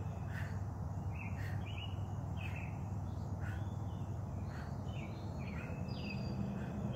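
Bird chirping in short calls about once a second, over a steady low background hum.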